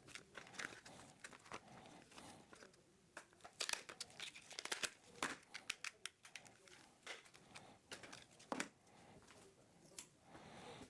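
Thin plastic being crinkled and torn by hand: a quiet, irregular run of sharp crackles and clicks.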